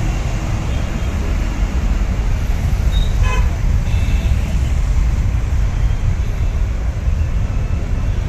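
Steady low rumble, with a short horn toot about three seconds in.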